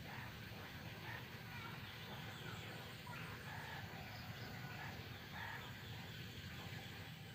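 Faint chicken clucking off in the distance, short scattered calls over a steady low background hum.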